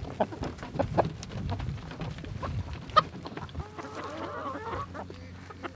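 A flock of chickens clucking close by, with scattered short clicks and one sharp click about three seconds in. A run of wavering clucks starts about four seconds in.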